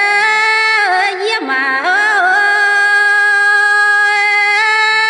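A woman singing a Dao lượn folk song unaccompanied, in long held notes that slide and waver in pitch. One note is held steadily for about two seconds in the middle.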